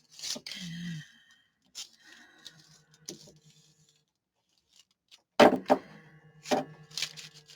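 Mobile phone vibrating on a desk in repeated low buzzes, among the clicks and knocks of paper and craft materials being handled. A few louder knocks come a little past halfway.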